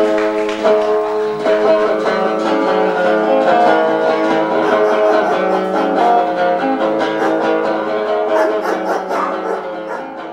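Acoustic guitar strummed in a steady pattern of chords, getting quieter near the end.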